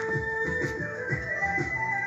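Background music with a steady beat and sustained melodic tones.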